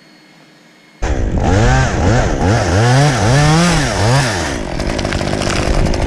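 Stihl chainsaw comes in loud about a second in and is revved up and down about once a second, then runs at a steadier, rougher pitch near the end as the bar cuts into a locust limb.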